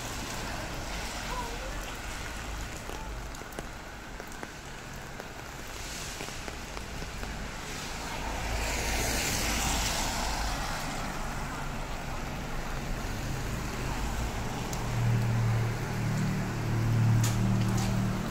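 Rainy street ambience: a steady hiss of rain and wet road, with a vehicle passing over the wet road about halfway through. Near the end a heavy vehicle's engine drones low nearby.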